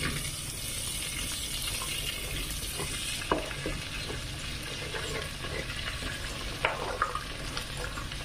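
Chopped green beans, potato and carrot sizzling in hot oil in a stainless steel pot as they are swept in from a wooden cutting board. A steady frying hiss runs throughout, with a few light knocks of pieces hitting the board and pot, about three seconds in and again near the end.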